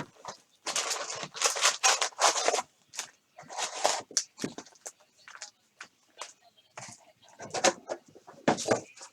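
Plastic wrapping on a trading-card box and pack crinkling and tearing as it is opened, in irregular rustling bursts.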